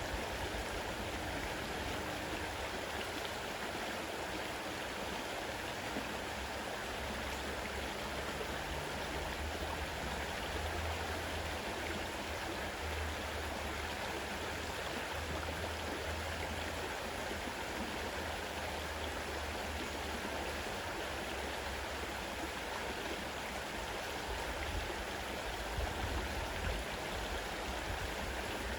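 Fast-flowing river running steadily, a continuous rush of water.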